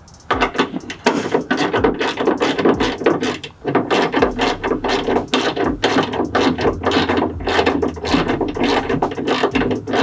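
Hand ratchet wrench clicking in a fast run as it drives in the bolt that holds a truck's inner door handle, with a short pause about three and a half seconds in.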